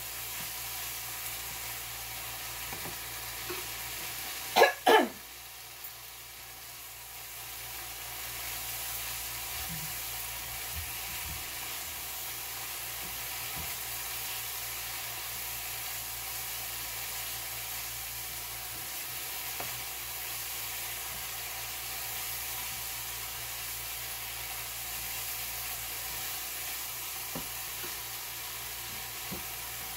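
Tomato and onion masala sizzling steadily in oil in a nonstick wok, stirred now and then with a spatula. Two loud knocks about five seconds in.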